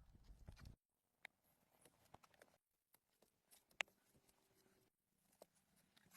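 Faint scattered clicks and taps, with one sharper click about four seconds in.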